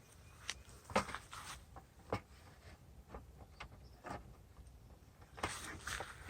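Faint, scattered knocks and clicks, about five spread over several seconds, with a short stretch of denser rustling near the end.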